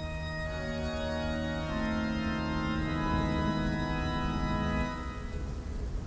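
Background music of long, held chords that change a couple of times and fade about five seconds in.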